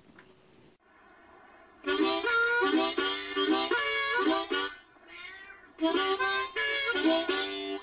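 A harmonica played in chords, in two phrases with a short pause between them, and a cat meowing along with it.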